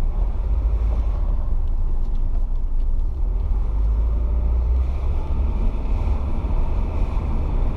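Rover 75 CDT's four-cylinder turbodiesel and road noise heard from inside the moving car, a steady low rumble with no clunk as the throttle is worked: the new lower engine mount is holding the engine still.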